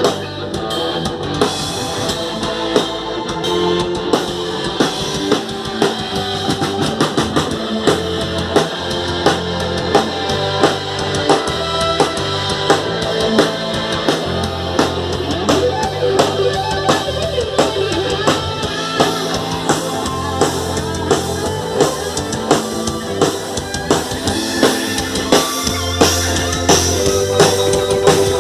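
Band music with a drum kit keeping a steady beat over a bass line and other pitched instruments.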